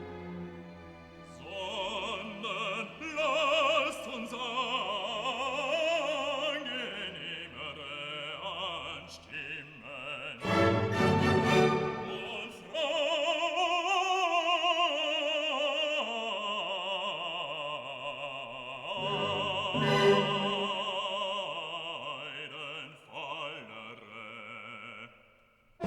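Background music: an operatic voice singing with wide vibrato over classical accompaniment.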